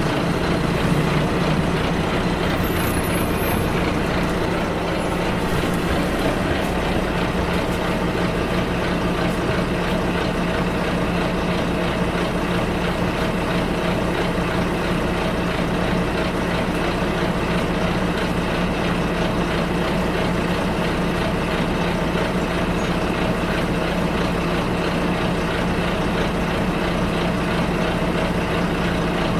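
Bus in motion, heard from inside: steady engine drone and road noise with a constant low hum.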